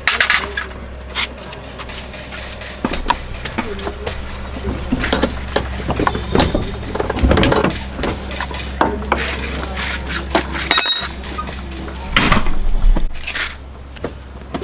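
Irregular knocks, clatter and clinks of tools and car parts being handled, over a steady low hum.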